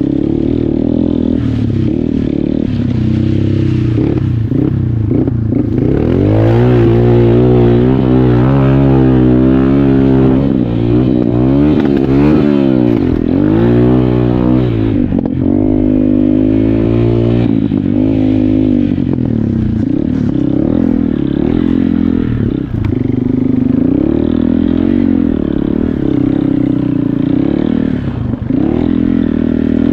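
Dirt bike engines running hard and revving as the bikes ride past, several at once in the middle stretch, the pitch rising and falling with each throttle change and pass.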